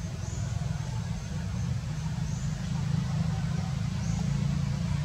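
Low steady rumble of outdoor background noise, with faint short high chirps about every two seconds.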